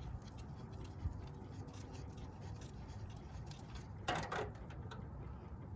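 Warm engine oil draining from a motorcycle's open drain plug hole into a drain pan, a faint steady trickle, with a single click about a second in and a brief rustle about four seconds in.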